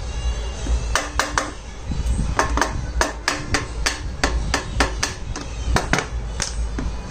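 Mallet tapping on the aluminium CVT cover of a Honda Activa scooter, a run of about twenty sharp knocks at two to three a second that begins about a second in, some with a short ring. It is knocking the refitted cover and its parts into place.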